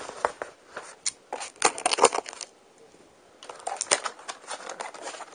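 A shipping box and its packing being pulled open by hand: three bursts of crinkling, scraping and small knocks.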